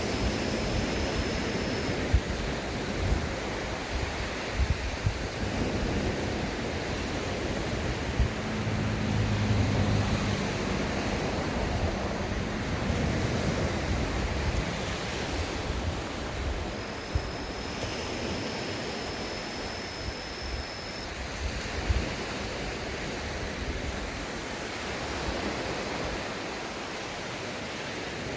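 Sea waves washing onto a beach, the surf swelling and easing, with wind buffeting the microphone in low thumps.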